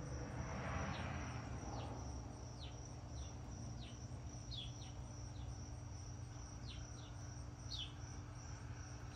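Insects calling: a steady high, finely pulsing trill with short falling chirps about once a second, over a low steady hum.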